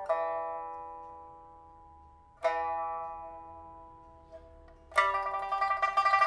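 Pipa with a Siamese rosewood body and a newly fitted soundboard and frets, played solo. A struck note is left to ring and die away, then another a couple of seconds later. About five seconds in, a loud fast tremolo of rapidly repeated plucks begins.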